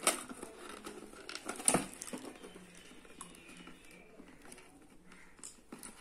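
Cardboard drone box being handled and opened by hand: light rustling and scraping of the cardboard, with two sharp knocks, one at the very start and one just under two seconds in.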